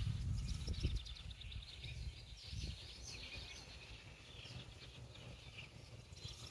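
Small birds twittering in rapid, irregular chirps, over a low rumble that is strongest in the first second.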